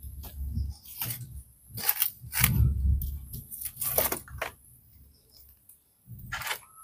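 Split firewood sticks knocking and clattering against one another and the concrete hearth as they are pushed into a wood cooking fire: sharp knocks at irregular intervals over a low rumble.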